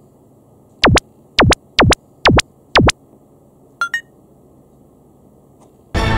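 Edited-in cartoon sound effects: five quick, loud synthetic swoops about half a second apart, then a short double blip about four seconds in, as exclamation marks pop up on screen. Near the end comes a loud ringing chime-like sting that fades slowly.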